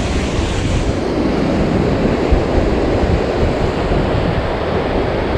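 Kern River water rushing steadily, running high, with wind buffeting the microphone.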